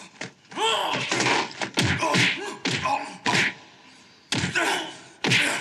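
Hand-to-hand fight sound effects from a martial arts film: a strained, pitched grunt of effort early on, then a string of hard thuds and smacks of blows.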